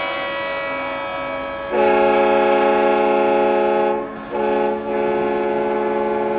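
Several horns blaring together in long held blasts, a chord of different pitches; they grow louder just under two seconds in, stop briefly about four seconds in, then sound again. Most likely boats' horns sounding across the harbor.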